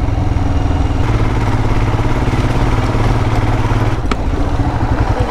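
Royal Enfield Himalayan motorcycle's single-cylinder engine running steadily, with a continuous hiss over it. A single sharp click comes about four seconds in.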